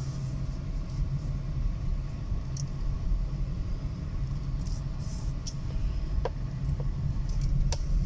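Steady low rumble of a car's engine and tyres, heard from inside the cabin while driving slowly, with a few light ticks near the end.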